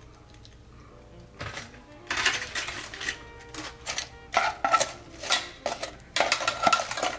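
Metal tongs clicking and knocking against a metal saucepan in quick clusters while fried chicken is turned in hot butter sauce. It starts about two seconds in, after a quiet start, over faint background music.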